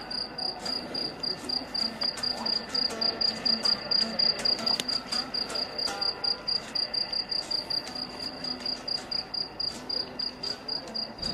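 A cricket chirping steadily, about four short high-pitched chirps a second.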